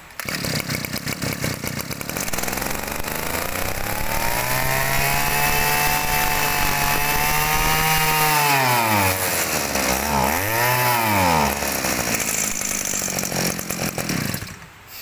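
Mitsubishi T170 brush cutter's small two-stroke engine, freshly started on the choke, running: it is revved up steadily over a few seconds and held high, let back down, blipped once more, then runs at idle before being shut off near the end.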